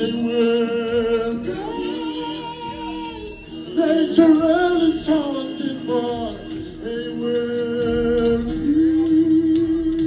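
A man singing live into a microphone over a music track, holding long notes and sliding between them.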